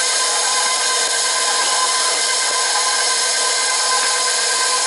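KitchenAid stand mixer running steadily on low speed, a continuous motor whine with several steady tones over a hiss, as it mixes dry ingredients (flour and sugar).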